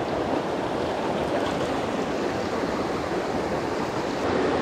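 Small stream flowing over rocks in a shallow riffle: a steady, even sound of running water.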